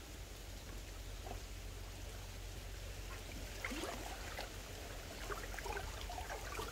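Faint water trickling and sloshing over a steady low rumble, with a few faint distant calls around the middle.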